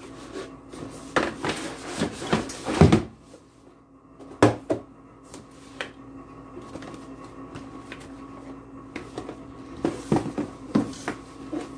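Small cardboard product boxes being lifted out of a cardboard shipping carton and set down on a wooden tabletop: scattered rustles and knocks, the loudest a single knock about four and a half seconds in, over a faint steady hum.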